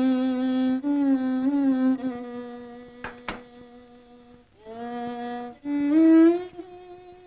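Background film music: a solo melody of long held notes that slide and waver between pitches, in short phrases with pauses between them, the last note held near the end.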